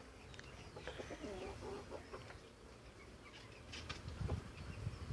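Chickens clucking faintly with short scattered calls, and a few low thumps and rustles near the end.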